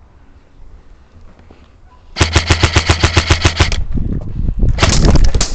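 Airsoft electric rifle firing on full auto, about ten shots a second: a burst of about a second and a half starting about two seconds in, then a second, shorter burst near the end.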